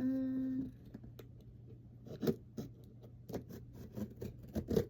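A knife cutting and scraping at the tape and cardboard of a parcel: irregular scratches and clicks.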